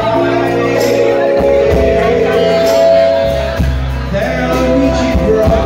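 Live band music with a man singing into a microphone over the band, held notes over a steady bass line.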